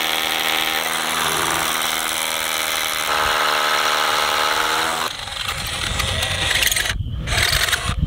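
Cordless Makita 18V SDS-Plus rotary hammer with a 1/2-inch Bosch Bulldog Xtreme carbide bit drilling into a poured concrete foundation wall. It makes a steady, loud hammering whine, and the even note breaks into a rougher, noisier sound about five seconds in.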